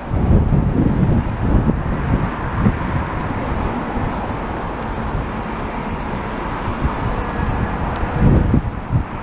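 Wind buffeting the microphone in gusts over a steady rumble of traffic.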